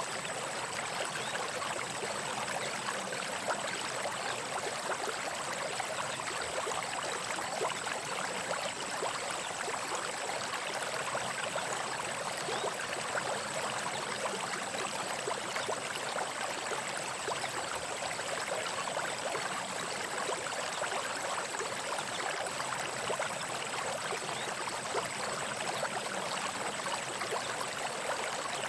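Small brook babbling and trickling over stones, a steady rushing with fine splashing detail.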